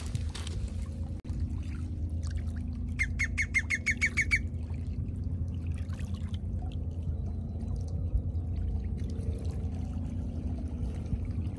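Small waves lapping in rocky shallows over a steady low rumble. About three seconds in, a bird gives a quick run of about ten short, high calls lasting under two seconds.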